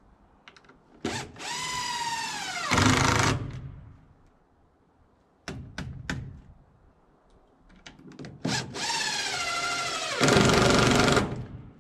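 Cordless drill driving two screws into a wooden brace, one after the other, a few seconds each: the motor whine drops in pitch as the screw bites, then turns louder and rougher as it seats. The drill's battery is nearly flat.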